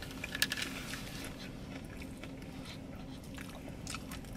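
Eating sounds: a few sharp clicks of plastic forks against foam food containers in the first second, then quiet chewing and faint ticks over a steady low hum.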